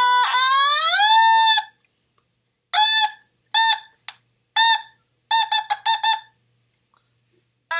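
Otamatone played in short 'wah' notes: one long note that dips and then bends upward, then a string of short squeezed notes at one repeated high pitch, ending in a quick flutter of several notes.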